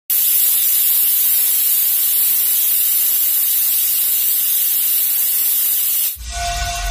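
Stovetop pressure cooker hissing steadily as steam escapes past its weight valve, a sign the cooker is up to pressure. The hiss cuts off suddenly about six seconds in, where music begins.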